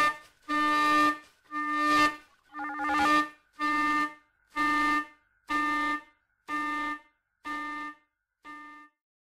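Saxophone repeating a single mid-range note about once a second, nine short notes that grow steadily quieter and fade out at the close of an improvised piece.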